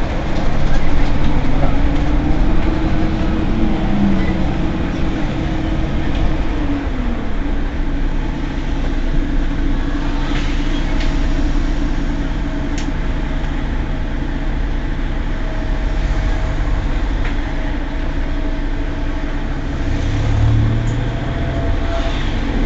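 Mercedes-Benz Citaro G C2 articulated bus standing with its engine idling: a steady low rumble and hum. A faint tone falls in pitch in the first few seconds, and a steady higher hum runs through the second half.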